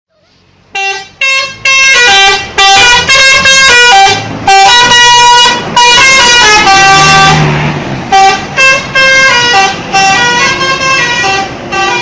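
Bus telolet horn, a multi-tone musical air horn, playing a loud tune of short and held notes that step up and down in pitch, starting about a second in.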